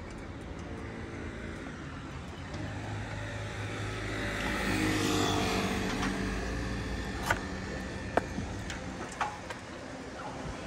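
A car passing close by on the street: engine and tyre noise build to a peak about halfway through, then fade. A few sharp clicks follow near the end.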